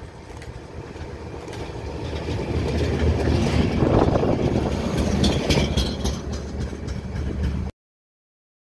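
A self-propelled rail maintenance vehicle (drezyna) running light approaches and passes close by, its engine and wheels on the rails growing louder to a peak as it goes past. Sharp clicks of the wheels over rail joints come a little after the middle. The sound cuts off abruptly near the end.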